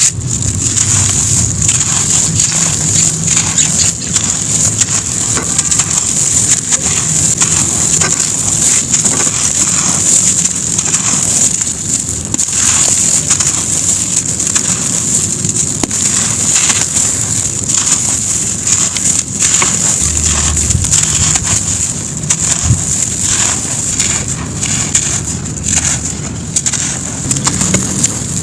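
Grainy sand-cement chunks crumbling onto a floor: a dense, continuous crackle of many small cracks over a steady high, gritty hiss.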